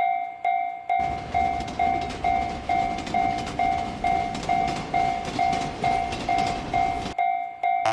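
Japanese railroad crossing warning bell ringing "kan-kan", a single tone struck about two and a half times a second. A train rushes past from about a second in and is gone near the end, while the bell keeps ringing.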